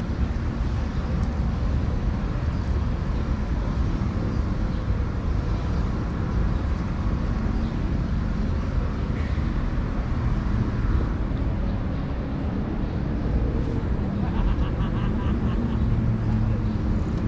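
Steady low outdoor rumble, with a faint quick ticking near the end.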